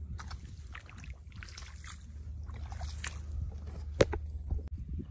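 Splashing and sloshing in shallow, muddy rice-paddy water, over a steady low rumble, with one sharp knock about four seconds in.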